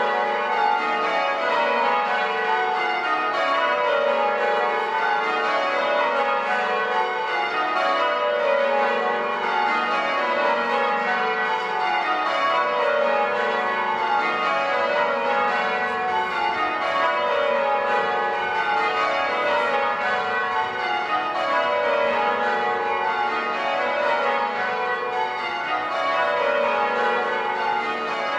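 Church tower bells change ringing: the bells strike one after another in rows that step down in pitch, repeating without a break.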